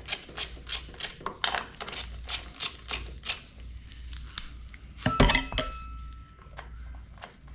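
Ratchet wrench with a 13 mm socket clicking steadily, about five clicks a second, as it spins nuts off. A little after five seconds there is a loud metallic clatter with a short ring.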